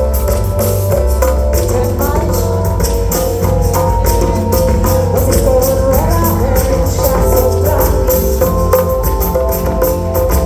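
Live band playing an instrumental passage: a steady bass line and quick, even percussion under a sustained melody line.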